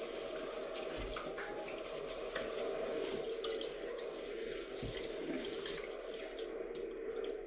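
Kitchen tap running steadily into a sink while something is rinsed under it, with small clicks and clinks of items in the basin.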